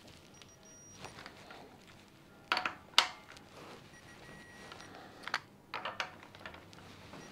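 Sharp metallic clicks and knocks of a torque wrench on a scooter engine's cylinder head bolts, checking that they are tightened correctly. Two loud clicks half a second apart come about two and a half seconds in, and a few more come around five to six seconds in, with faint high steady tones in between.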